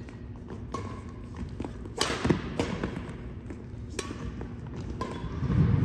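Badminton rackets striking the shuttlecock back and forth in a rally: about five sharp hits roughly a second apart, the loudest about two seconds in, with thuds of players' feet on the wooden court.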